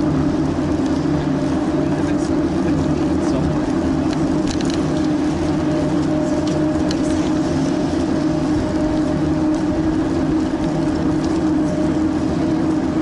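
Steady low rumble of a bicycle riding along a paved path, picked up by an action camera mounted on the bike.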